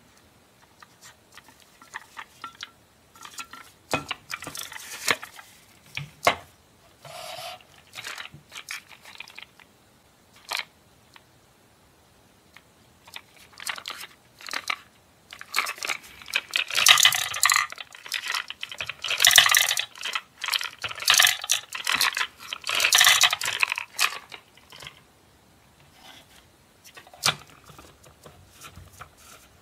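Clicks and knocks of a plastic toy gumball machine being handled. Then, from about halfway through, some eight seconds of loud, dense rattling in pulses: strawberry Chocoball candies shaken out of their box into the machine's plastic globe.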